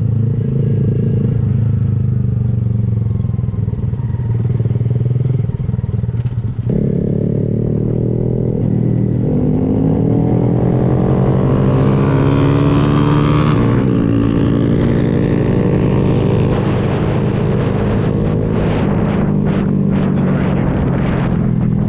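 Honda Grom's single-cylinder engine running through a Kemimoto aftermarket exhaust while being ridden. The pitch climbs steadily for several seconds under acceleration, then drops sharply at a gear change about fourteen seconds in.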